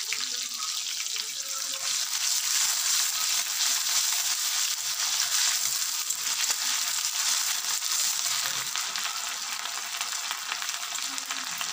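Hot oil sizzling steadily in a kadai as tomatoes and ginger–green chilli paste fry, with a metal spatula stirring through them.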